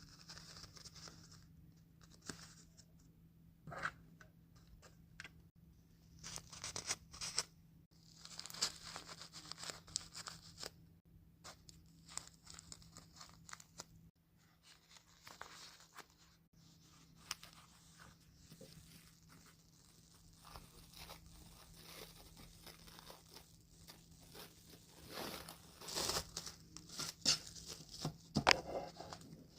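Paper napkin and plastic wrap being handled and torn by hand: intermittent tearing and crinkling in irregular bursts with short pauses, loudest near the end.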